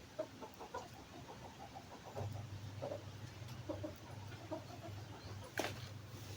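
Short, choppy bird calls repeated in quick runs, over a steady low hum that comes in about two seconds in. A single sharp click sounds near the end.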